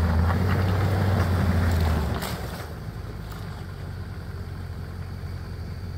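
Land Rover Discovery 2 engine working at raised revs as the truck sits against a rock ledge, a steady low drone that eases off about two seconds in to a quieter, lower steady run.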